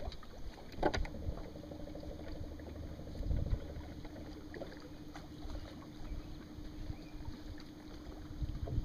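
A boat's electric trolling motor hums steadily, switched on with a click about a second in. There are low knocks and rumble from the boat's hull and deck underneath.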